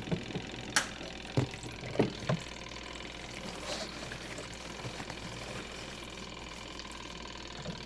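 Good Ideas twin-tub washing machine with a steady low hum. Several sharp knocks and clicks come in the first two and a half seconds as the unbalanced wet load in the spin basket is handled.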